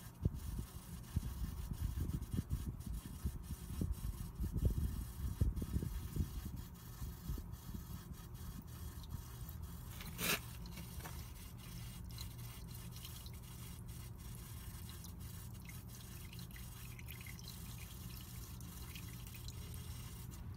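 A thin stream of engine oil, flushed with Seafoam spray, trickling and dripping from the oil pan drain into a full drain pan. A low, uneven rumble runs through the first several seconds, and there is one sharp click about halfway through.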